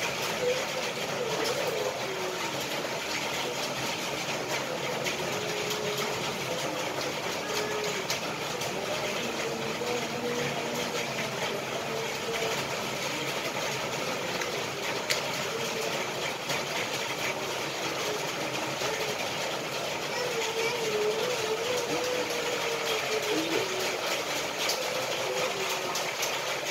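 Steady mechanical hum with scattered faint ticks and taps, and one sharper tap about fifteen seconds in.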